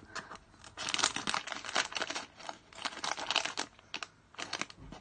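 Plastic blind-bag packet crinkling and rustling in the hands as it is worked open with scissors, in irregular bursts of crackle with a short lull about four seconds in.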